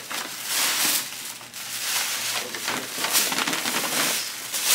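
Irregular rustling and crinkling of presents and their packaging being handled, with no steady tone or rhythm.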